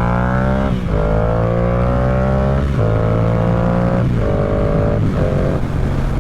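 Yamaha R7's parallel-twin engine accelerating hard through the gears, heard from the rider's position. Its pitch climbs, drops at an upshift and climbs again four times, each gear shorter than the last, then it settles into a steadier run with wind rush near the end.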